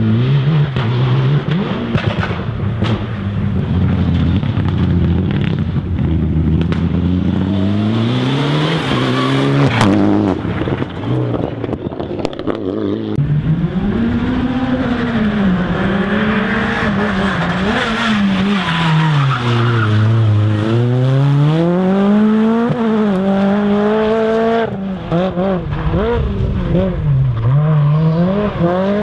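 Rally car engines at full effort, the pitch repeatedly climbing and dropping sharply through gear changes and lifts, with tyre noise mixed in.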